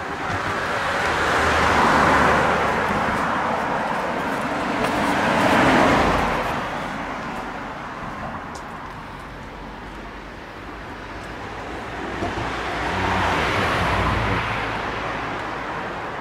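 Road traffic passing on the bridge: cars go by one after another, their tyre noise swelling and fading, loudest about two and six seconds in and again near the end.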